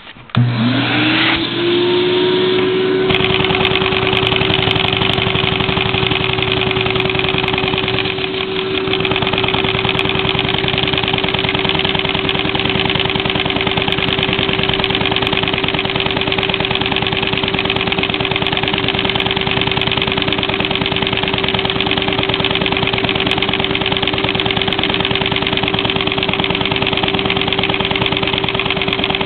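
A vacuum cleaner switched on, its motor whine rising within about half a second to a steady pitch and running on. Over it the small all-Lego vacuum-powered piston engine runs on the suction with a fast, even clatter.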